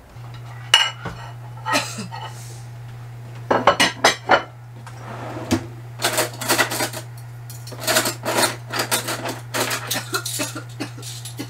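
Dishes and cutlery clinking and clattering in a kitchen, with a steady low hum underneath.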